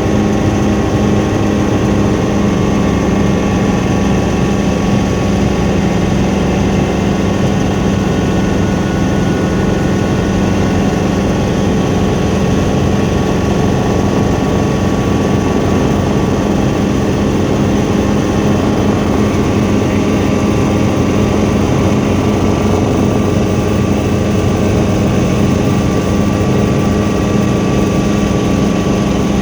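Helicopter engine and rotor running steadily: a constant loud drone with a faint higher whine, unchanging throughout.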